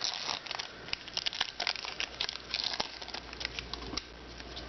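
Foil wrapper of a Pokémon booster pack crinkling and tearing as it is opened by hand, with irregular crackles throughout.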